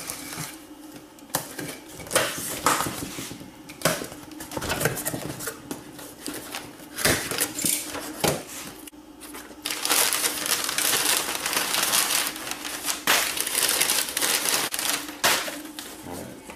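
A cardboard shipping box being opened by hand: a blade slitting the packing tape, the flaps scraping and folding back, and packing material rustling and crinkling inside. Short irregular scrapes and knocks give way, about ten seconds in, to a long stretch of dense rustling that lasts about five seconds.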